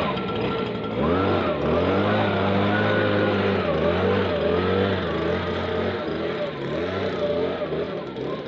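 Stihl BG56 two-stroke leaf blower engine running, its pitch dipping and rising again several times as the speed changes.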